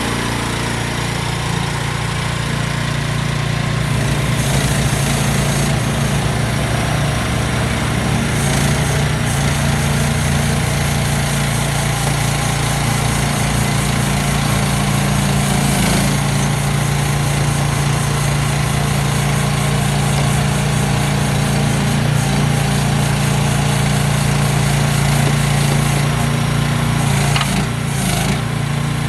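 CFG QK18R mini excavator's engine running at a steady speed.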